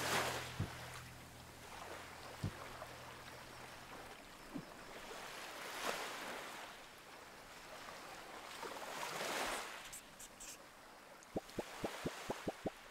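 Soft surf-like ambience, swells of whooshing noise rising and falling every few seconds, under a low held hum that stops about four seconds in. Near the end comes a quick run of about eight small ticks.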